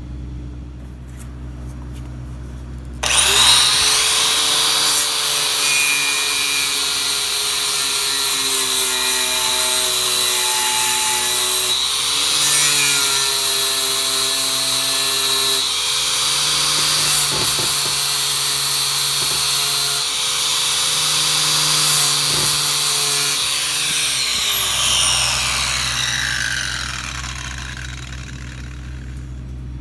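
A power-tool wire wheel starts about three seconds in and scrubs paint off the steel mower deck down to bare metal for welding: a loud, harsh hiss over a motor whine that shifts in pitch as the wheel is pressed on. It is switched off about 24 seconds in and winds down with a falling whine.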